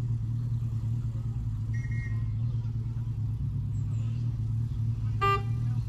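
Engine of a 'Planet' narrow-gauge locomotive running steadily with a low hum. About five seconds in, a short horn toot.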